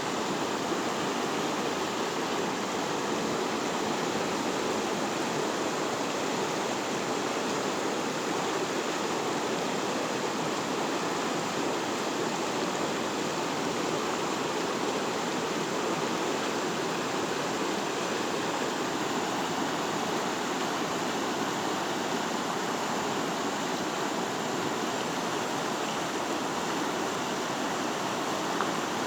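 Mountain river rushing over rocks: a steady, even roar of flowing water with no breaks.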